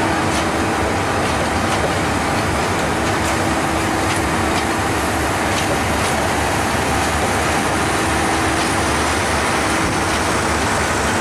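Bangladesh Railway intercity passenger coaches rolling past on the rails, a steady loud rumble with faint clicks from the wheels.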